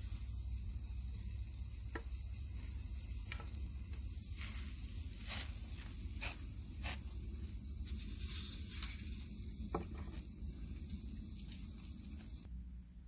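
Food sizzling on a metal grill grate over campfire coals, with a scatter of sharp crackles and pops. The sizzle drops away shortly before the end.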